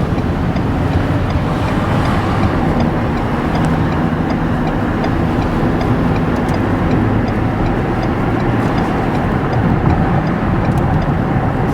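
Car driving: a steady engine hum under road and tyre noise, heard from inside the vehicle.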